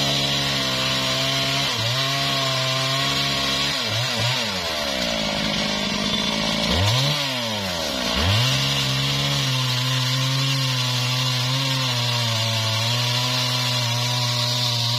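Stihl two-stroke chainsaw at high revs cutting into a felled mahogany log. The revs drop back briefly about two, four and seven seconds in, then hold fairly steady under load through the second half.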